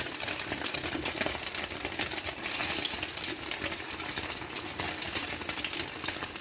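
Egg-coated chicken kababs shallow-frying in hot oil on a flat tawa: a steady sizzle with dense, fine crackling of spattering oil.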